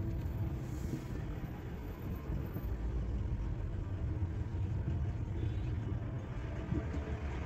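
Low, steady rumble of a car driving: engine and road noise heard from the moving car.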